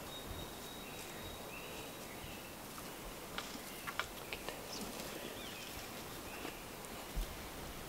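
Quiet woodland ambience with birds singing: a long high whistle at the start, then short warbling phrases. A few sharp clicks and knocks come about three and a half to four and a half seconds in, and one more near the end.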